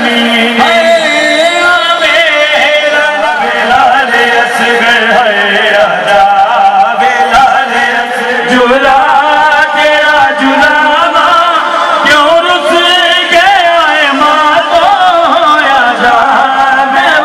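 Men singing a nohay, a Shia lamentation chant for Muharram, with a slow, wavering melodic line and no break.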